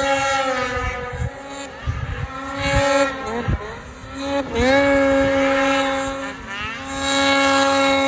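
Snowmobile engines revving hard in deep powder. The pitch climbs sharply about four and a half seconds in and holds high, then rises again near the end.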